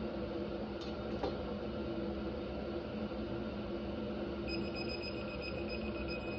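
A digital torque wrench sounds a thin, high, steady beep from about four and a half seconds in for nearly two seconds, the signal that a head bolt has reached its 10 ft-lb setting. A steady hum runs underneath throughout, with two light clicks about a second in.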